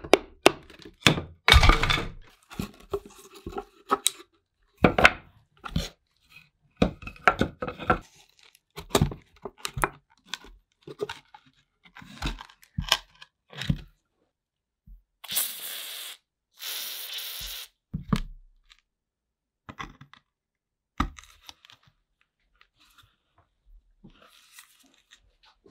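Old wooden staves of a Frost King ice cream maker's tub being pried and knocked apart: a run of wooden knocks, cracks and scraping. About halfway through, two short hissing bursts, then a few faint clicks.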